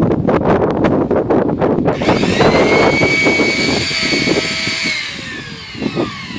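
Electric belt sander running: a rough rasping noise, then a high motor whine that holds and then falls in pitch as the sander winds down near the end.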